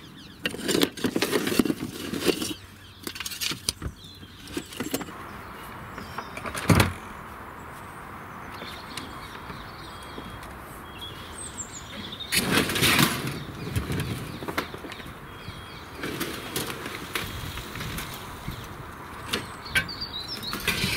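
Roof slates clattering against each other and the plastic as they are lifted out of a plastic storage bench, then knocks and scrapes of the hollow plastic bench being shifted and tipped up on end. There is a sharp single knock about seven seconds in and a louder run of knocks about twelve seconds in.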